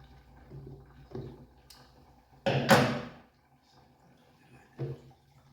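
Workshop handling noise: a sharp scraping clatter lasting under a second about halfway through, then a single light knock near the end.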